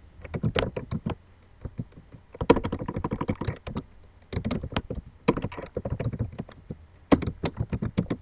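Typing on a computer keyboard: quick runs of keystrokes in several bursts with short pauses, as a name is typed into a form field.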